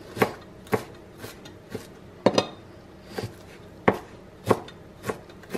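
Chef's knife chopping fresh dill on a cutting board: the blade strikes the board about twice a second at a fairly even pace.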